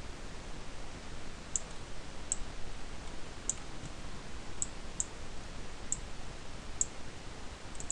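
Computer mouse clicking, about eight sharp clicks at irregular intervals, over a steady faint hiss.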